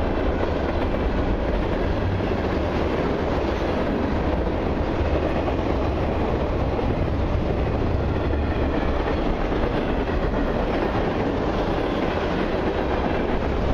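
Freight cars of a mixed freight train rolling past at close range: a steady rumble of steel wheels on the rails.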